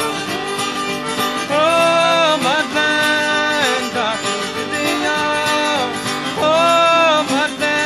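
Cajun music: acoustic guitar under a gliding melody line that comes in about a second and a half in.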